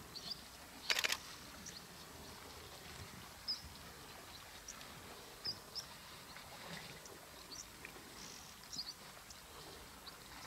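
Faint outdoor ambience with short, high bird chirps scattered throughout and one louder, brief rattling rasp about a second in.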